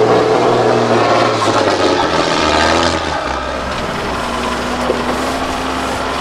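Diesel engine of a 6x6 Mercedes-Benz trial truck pulling hard under load, with heavy black exhaust smoke. About three seconds in it drops to a lower, slightly quieter running as the truck crawls over rough ground.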